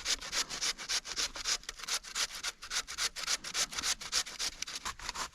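Potato and zucchini being grated by hand on a metal grater, quick rasping strokes at about four to five a second.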